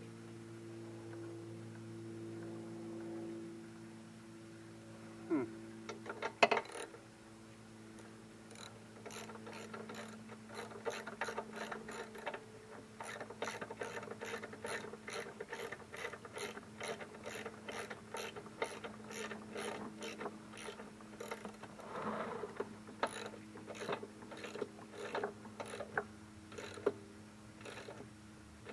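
Ratchet wrench clicking in repeated strokes, about two or three clicks a second, after two louder knocks about six seconds in; a low steady hum runs underneath.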